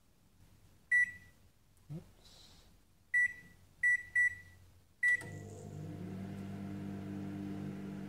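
Panasonic microwave oven's keypad beeping five times as the buttons are pressed, then the oven starting up about five seconds in and running with a steady hum.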